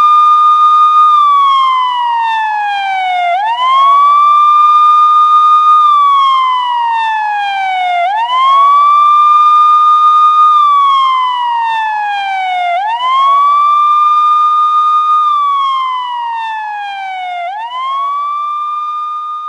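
Police car siren sounding its wail: a single tone that sweeps up quickly, holds briefly at the top, then glides slowly down before sweeping up again, about one cycle every four to five seconds.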